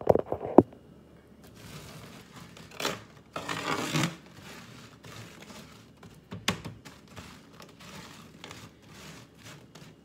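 Metal spatula scraping across a metal sheet pan and turning sugar-coated pecans partway through baking, the nuts rattling and clicking against the pan. Sharp clicks at the start, louder scraping around four seconds in, then lighter scrapes and taps.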